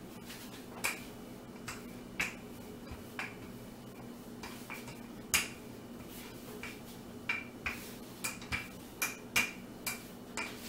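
Wooden rolling pin working dough on a wooden board: a run of sharp wooden clicks and knocks, each with a brief ring. They are sparse at first and come about two a second in the second half.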